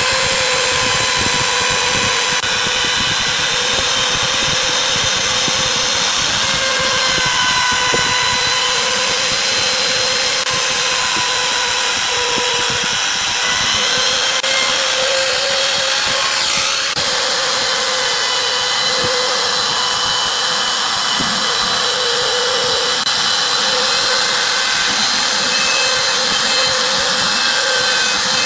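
Compact palm trim router running at speed with a steady whine, its bit cutting a shallow recess into a pine board.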